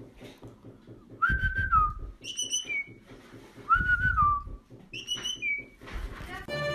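Whistling in two matching phrases: a steady mid-pitched note that dips at its end, then a higher note that slides down. The phrase is repeated about two seconds later.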